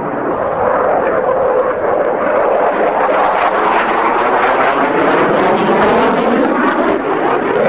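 Loud, steady jet engine noise from a delta-wing fighter flying a display overhead. From about the middle onward the noise takes on a wavering, swirling sweep as the jet passes.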